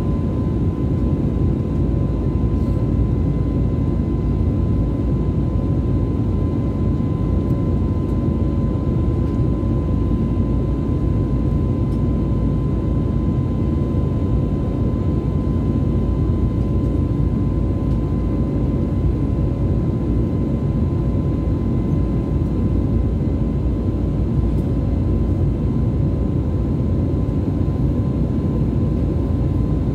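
Steady roar of a jet airliner's engines and airflow in flight, heard inside the passenger cabin, with a thin steady whine over it.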